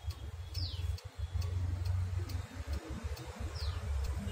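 Weight-driven cuckoo clock's pendulum movement ticking steadily, each tick a short click. A bird gives two short falling chirps, and a low rumble runs underneath.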